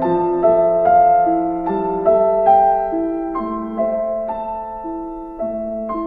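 Background solo piano music: slow single notes struck about twice a second, each left ringing so that they overlap.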